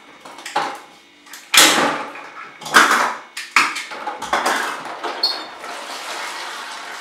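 A hard plastic toy ball being handled and twisted open, with plastic clattering and wrapper crinkling in several short sharp bursts over the first few seconds, then a steadier rustle.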